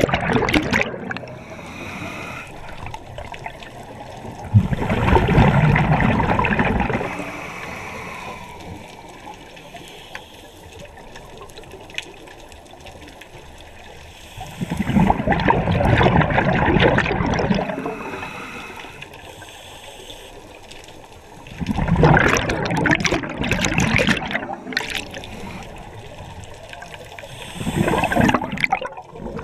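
Scuba diver breathing through a regulator underwater: each exhalation comes out as a burst of bubbling and gurgling lasting a couple of seconds. These bursts repeat every six to seven seconds, with quieter stretches between them.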